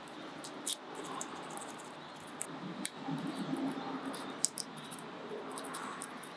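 Fine-grade sandpaper scuffing the contact points of a power window switch to clear carbon build-up: a faint, irregular scratchy rubbing with scattered small clicks.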